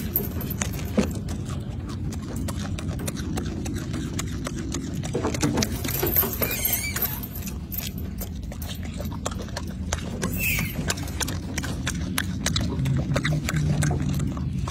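Close-up eating sounds from a golden snub-nosed monkey working on a mandarin orange: a dense run of short clicks and wet smacks from chewing and tearing the peel, over a steady low rumble.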